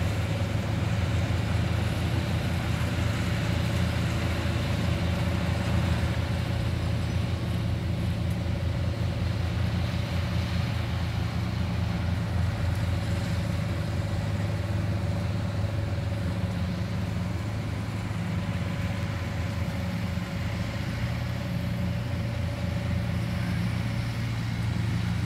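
Diesel engines of Yanmar rice combine harvesters running steadily. They make a low drone with a thin, steady whine above it, and the whine fades out near the end.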